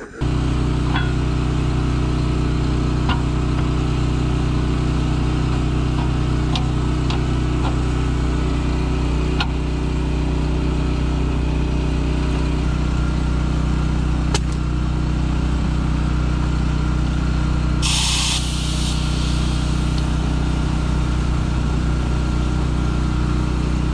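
An engine idling steadily, with a few faint clicks and a short hiss about 18 seconds in.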